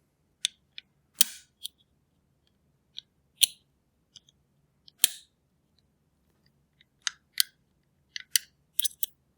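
Irregular sharp metal clicks and scrapes, about a dozen, from a makeshift pick (a cut-down meat skewer) probing inside a Jacksons two-lever cabinet lock while feeling for the lever.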